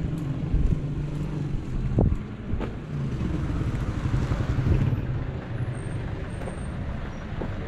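A motor vehicle's engine running nearby, a steady low rumble that swells for a moment about four seconds in, with a few short thumps, the clearest about two seconds in.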